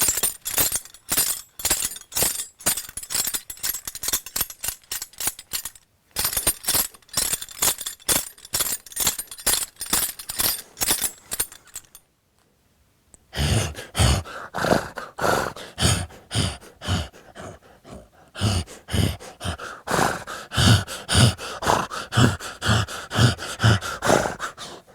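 Foley horse bridle: metal bit and buckle hardware jingling and clinking in a steady rhythm to match trotting hoofbeats. After a short pause about halfway, a run of deeper rhythmic sounds at about two a second.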